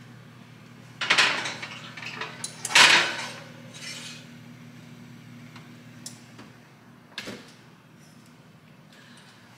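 Glass loaf pan set onto a wire oven rack and pushed in, with two loud clattering knocks of glass and metal about one and three seconds in and lighter knocks after. A shorter knock near the end as the oven door is shut, over a steady low hum.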